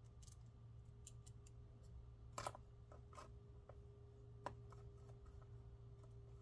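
Faint small clicks and taps from hands handling the laptop's aluminium bottom case and its screws, the loudest a short cluster about two and a half seconds in and a single click about two seconds later, over a faint steady hum.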